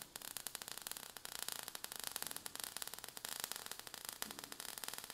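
Faint crackling hiss, like static, with dense tiny clicks throughout.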